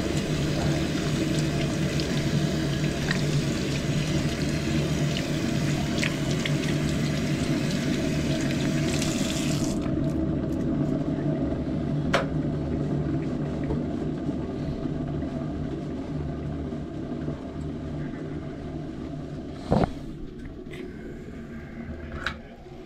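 Bathroom sink tap running, its hiss cut off abruptly about ten seconds in, leaving a steady low hum that slowly fades. Sharp knocks come twice later on, the louder one near the end.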